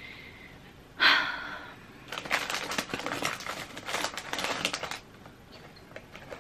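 Biting into and chewing a crunchy double-cream Oreo biscuit close to the microphone. A single loud crunch comes about a second in, then about three seconds of dense crackly chewing that stops about five seconds in.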